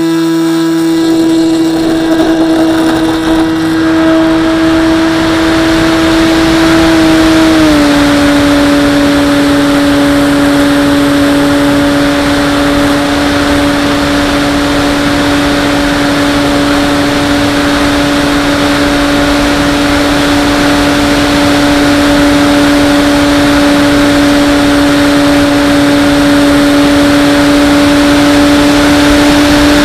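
Skyhunter RC plane's electric motor and pusher propeller running under power, heard from the onboard camera as a loud, steady whine over a rush of air. The pitch drops slightly about seven and a half seconds in and holds steady through the takeoff and climb.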